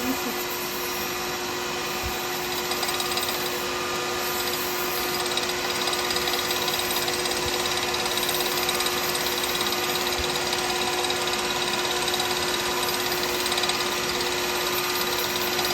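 Wood lathe motor running at a steady speed with a constant hum, spinning a cast pen blank while it is sanded dry with abrasive paper.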